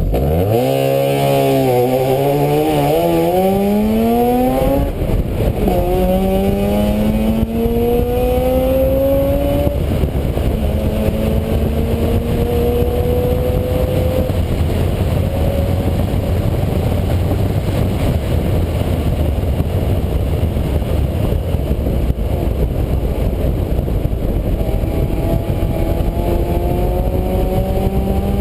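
Motor vehicle engine accelerating through the gears: its pitch climbs, drops at a gear change about five seconds in, climbs again and shifts again around ten seconds, then holds steady at cruise before rising again near the end. A dense rushing noise runs underneath.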